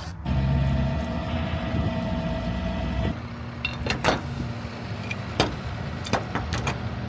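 Service van's engine running with a low rumble. A steady whine sounds for about the first three seconds, and several sharp clicks and knocks come in the second half.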